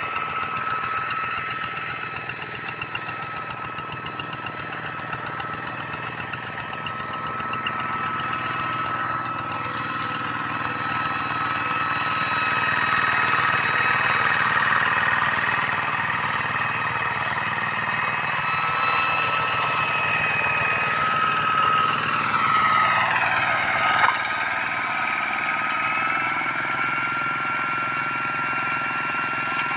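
Walking hand tractor's single-cylinder diesel engine running steadily while pulling a plough through field soil. Its pitch sweeps just before an abrupt change with a short sharp peak about 24 seconds in.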